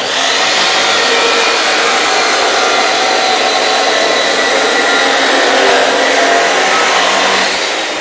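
Abrasive cut-off saw running and cutting steel bar: a loud, steady grinding hiss with several held tones. It starts suddenly and eases off a little near the end.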